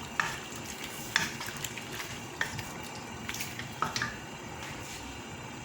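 Kitchen pot-and-utensil handling: about half a dozen light, separate clicks and clinks over a faint watery background.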